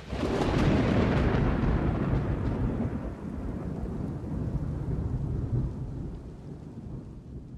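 A thunderclap that breaks sharply at the start and then rolls on as a long low rumble, slowly fading away.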